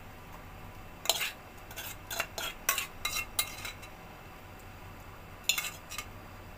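A metal spoon scraping and clinking against a steel bowl while cooked minced meat is spooned out. There is a run of quick scrapes and clinks from about a second in, then a few more near the end.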